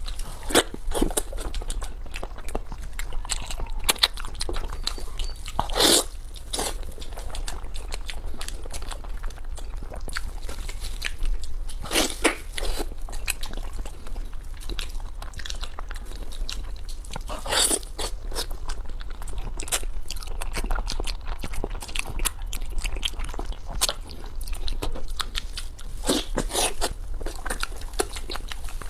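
A person chewing and crunching seafood close to the microphone: continuous wet crackling bites, with louder sharp crunches about 6, 12, 17 and 26 seconds in.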